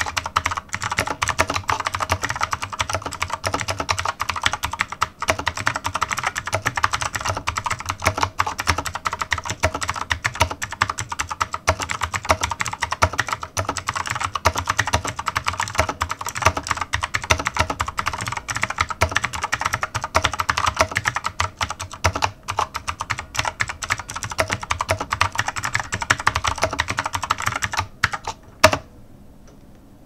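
Fast typing on a cheap Lingbao tenkeyless mechanical keyboard with clicky Gateron Blue switches: a dense, continuous clatter of key clicks. The typing stops about two seconds before the end, with one last louder key strike.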